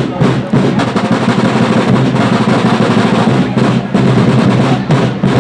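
Rudimental snare drums and a bass drum of an ancient fife and drum corps playing, with rapid snare rolls and strokes.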